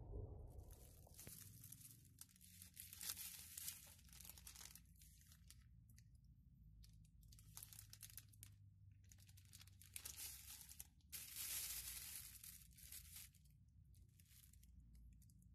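Thin clear plastic bags being handled, crinkling and rustling in repeated irregular bursts, over a faint low hum.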